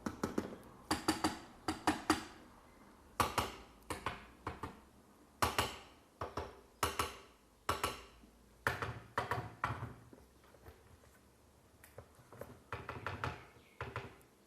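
Irregular clicks and light taps, in small clusters of two to four, from a 1:24 scale diecast model car being handled as its small metal and plastic parts click.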